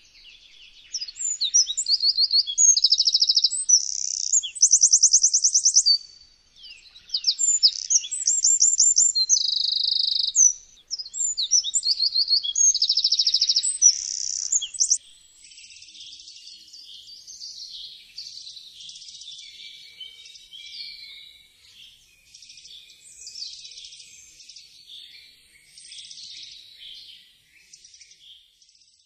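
Eurasian wren singing: three loud, rapid phrases of trills and sharp notes, each a few seconds long with short pauses between. After about fifteen seconds the singing turns much quieter and more jumbled.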